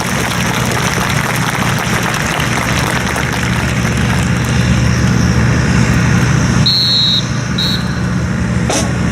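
A steady engine drone with an even low hum under broad background noise. Two short high-pitched tones come about seven seconds in.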